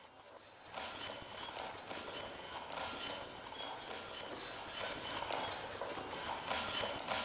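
Breaking glass with glass beads clattering and tinkling: a dense, irregular run of small clicks with brief high pings, growing a little louder toward the end.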